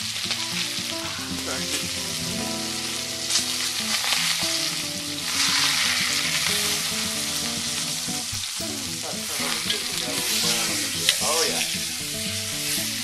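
An axis deer leg searing in hot oil in a cast-iron Dutch oven, sizzling steadily. The sizzle swells louder about five seconds in as the leg is turned over with tongs, and there are a few sharp clicks.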